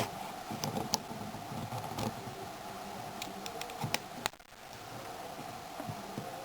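A few light, sharp clicks scattered over a steady background hum, with a brief dip in the hum a little past four seconds in.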